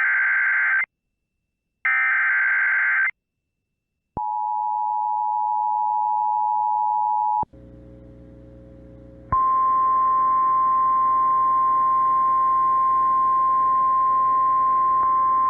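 Emergency Alert System header data: two harsh, buzzing bursts about a second long each. Then a steady two-tone EAS attention signal sounds for about three seconds. After a brief stretch of radio hiss, the NOAA Weather Radio single-tone warning alarm comes in over static about nine seconds in, holding steady, the signal that a weather warning broadcast is about to follow.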